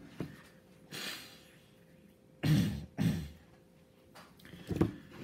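A man breathes out audibly, then clears his throat with two short, low voiced sounds about half a second apart.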